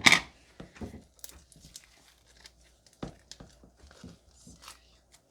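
Homemade slime with foam beads being handled and stretched by hand: scattered faint crackles and clicks after a brief loud sound right at the start.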